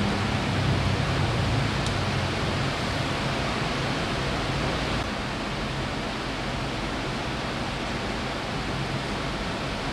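Steady, even whooshing hiss of an electric stand fan blowing near the microphone, dropping slightly in level about five seconds in.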